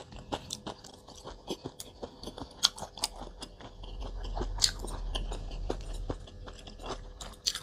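A person chewing food close to the microphone, with many irregular wet mouth clicks and smacks.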